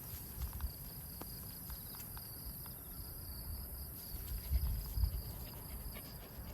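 Insects chirring steadily in a continuous high tone, over an uneven low rumble on the microphone with scattered light clicks; the rumble swells briefly about four and a half seconds in.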